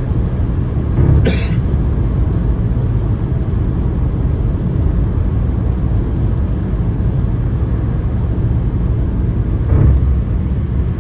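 Steady low road and engine rumble of a car cruising at motorway speed, heard from inside the cabin. A short hiss comes about a second in, and the rumble swells briefly near the end.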